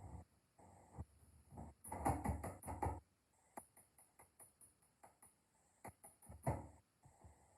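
Irregular small clicks and taps with short scraping sounds, like hand work on a small object. A rapid run of taps about two seconds in, and a louder burst about six and a half seconds in.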